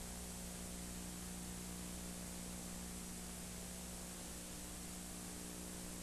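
Steady faint hiss with a low electrical hum, the background noise of an old 1990 recording; nothing else is heard.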